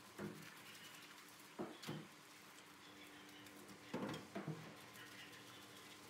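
Faint handling sounds of a wet, soapy dog being scrubbed in a stainless steel tub: a few short knocks and rubs, in two close pairs, over a steady low hum.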